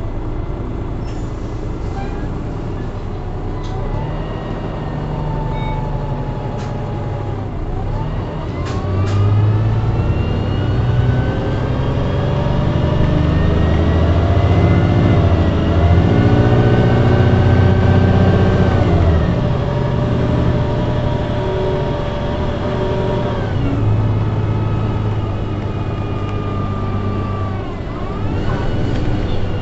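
Transbus Enviro500 bus with a Cummins ISMe diesel and a Voith DIWA automatic gearbox, heard from inside, driving under power. The drivetrain whine climbs in pitch, drops briefly at a gear change near 8 s, then climbs again as the engine pulls harder. It holds steady, eases off sharply about 19 s in, and drops again near the end.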